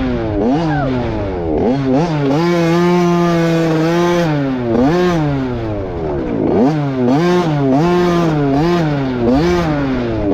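Dirt bike engine running at low speed, revving up and dropping back again and again in short throttle blips, held steady for about a second and a half near the middle.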